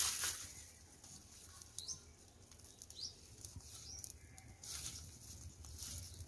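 Faint outdoor ambience: a few short, high, rising bird chirps over a low steady hum, with brief soft hissing.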